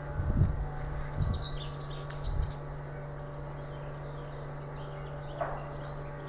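Steady droning hum of a woodworking machine running continuously, with birds chirping over it. There are a few low thumps in the first couple of seconds.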